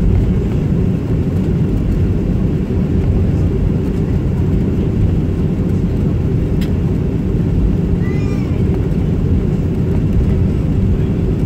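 Steady low rumble inside a jet airliner's cabin after landing: engine and airframe noise as the aircraft taxis.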